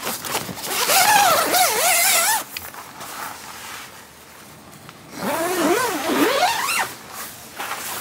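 Tent door zipper pulled along the canvas in two long strokes, each about two seconds, with a wavering whirring pitch that rises and falls with the speed of the pull.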